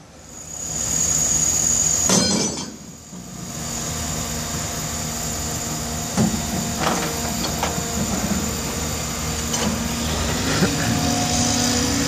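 A crane's engine drones steadily as it lifts and turns a precast concrete wall panel, with scattered sharp clanks and knocks.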